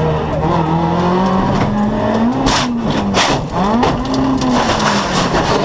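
Renault Twingo R2 rally car's four-cylinder engine heard from inside the cabin, its note rising and falling, with tyres skidding and two hard noisy hits about two and a half and three seconds in as the car goes off and crashes.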